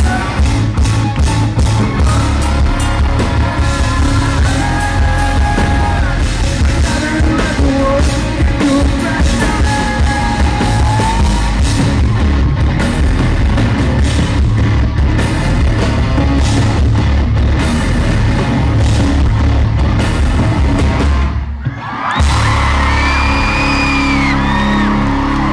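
Live rock band playing loudly with sung lead vocals and pounding drums. About 21 seconds in the music drops out briefly, then a held chord rings on while fans whoop and scream.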